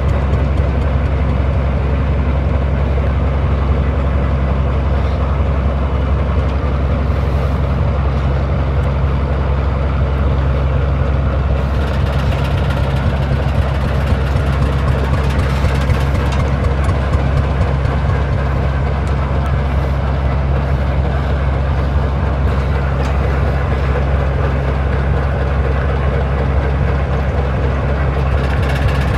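Arrow natural gas engine running steadily with a deep, even hum as it drives a Lufkin pumpjack.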